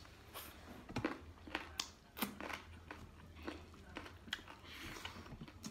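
Chewing and mouth sounds of a person eating rice and chicken curry with his fingers: a string of short, irregular wet clicks and smacks.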